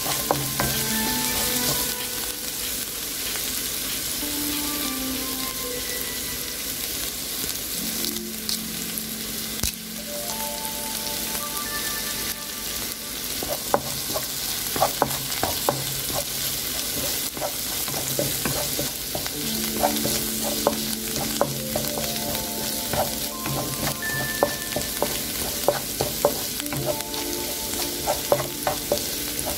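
Sliced shallots, garlic, green chillies and curry leaves sizzling steadily in hot coconut oil in a nonstick pan, stirred with a wooden spatula. The spatula taps and scrapes against the pan, more often in the second half.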